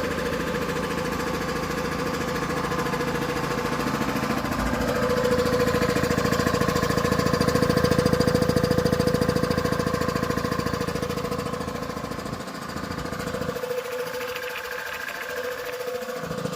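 3 HP two-stage reciprocating piston air compressor running, its pistons pumping in a rapid, even beat under a steady hum. It gets louder towards the middle, and the deep part of the sound falls away about two-thirds of the way through.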